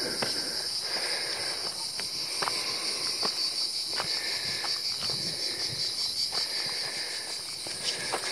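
Footsteps on a dry, stony dirt path, about one step a second, over a steady high-pitched chorus of insects that trills and pulses without a break.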